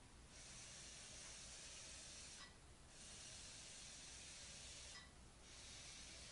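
Bee-Bot floor robot's small gear motors whirring faintly as it drives step by step across the mat, stopping briefly between steps about every two and a half seconds.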